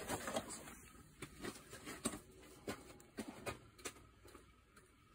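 Faint, irregular taps and knocks, a few a second, dying away after about four seconds.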